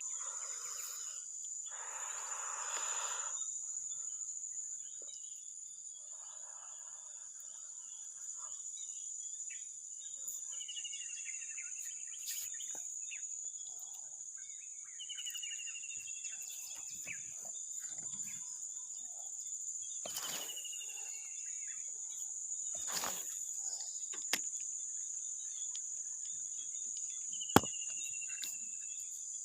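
Steady high-pitched insect drone, typical of crickets, with a short falling call repeating every five seconds or so. There is a brief rustle about two seconds in and a sharp click near the end.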